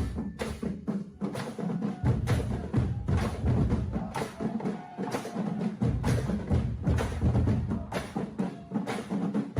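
Drumblek percussion ensemble playing a fast rhythm of sharp, clacking strikes, with heavy low drums that drop out and come back in.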